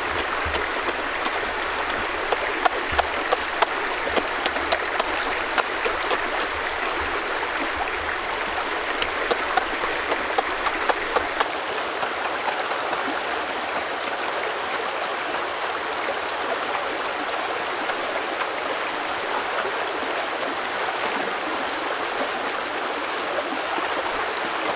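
Steady rush of a flowing river, with scattered sharp clicks and smacks of someone chewing close by.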